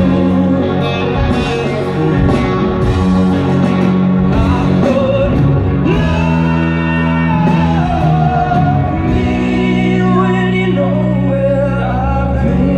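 Rock band playing live: electric guitars and drums with a singer's voice over them, loud and steady.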